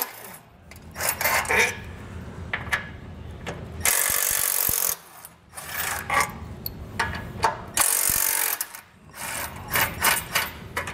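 Cordless impact driver run in two bursts of about a second each, backing out bolts from the vehicle's frame extension, with clicks and clatter of bolts and hardware being handled in between.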